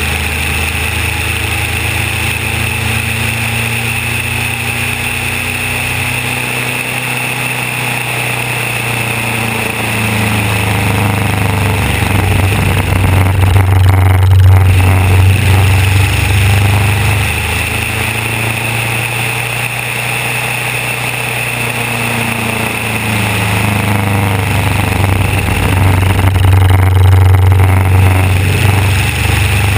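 Fournier light aircraft's piston engine running with a steady low drone and rushing airflow, heard from a camera on the wing. The sound swells louder twice, about halfway through and again near the end, with the engine note shifting, as the aircraft enters flick-rolls.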